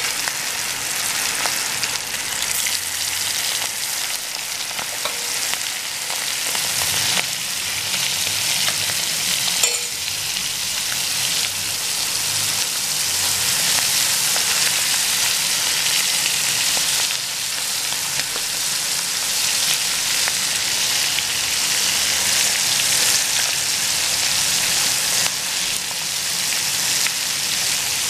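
Masala-coated prawns deep-frying in hot oil in a kadai: a steady, dense sizzle of bubbling oil.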